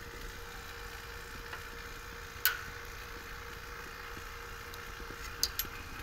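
Vacuum pump running steadily while evacuating an air-conditioning system. A sharp click comes about two and a half seconds in and two more close together near the end, as the micron gauges' brass hose fittings are handled.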